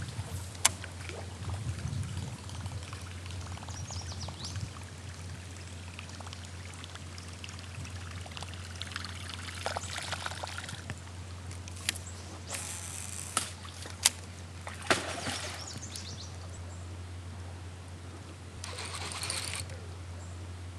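River water trickling and splashing around a kayak, with several brief splashy swells and a few sharp knocks, over a steady low hum.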